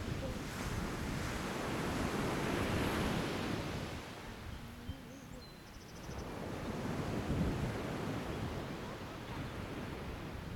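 Pacific surf washing onto the beach, swelling and easing twice, with wind rumbling on the microphone.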